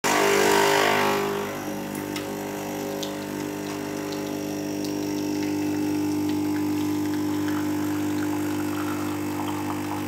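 Nespresso Creatista Plus coffee machine running, its pump giving a steady buzzing hum as it pushes water through the capsule to brew. A louder noisy rush comes in the first second, then settles into the buzz.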